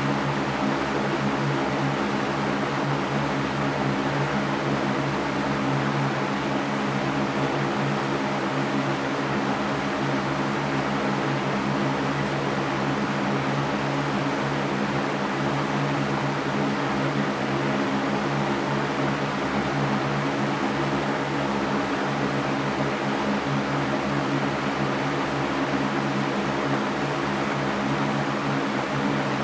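Electric fan running steadily: an even airy rush with a low motor hum underneath.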